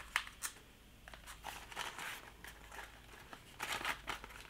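Fingers picking at the wrapping of a small product package, trying to open it: crinkling and rustling of the packaging, with two sharp ticks in the first half second and a louder stretch of rustling near the end.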